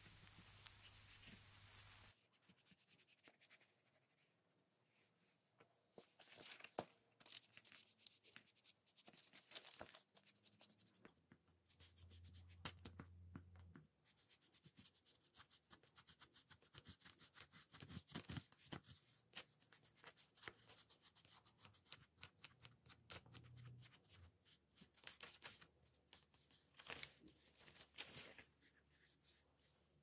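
Near silence, broken by faint, scattered rubbing and scratching with small clicks as a shoe-whitener bottle's applicator tip is dabbed and rubbed along a sneaker's white rubber sole.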